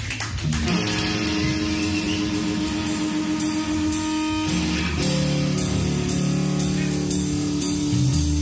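Live rock band of electric guitar, bass guitar and drum kit playing: held electric guitar chords over bass and drums, the band coming in about half a second in and changing chord about halfway through.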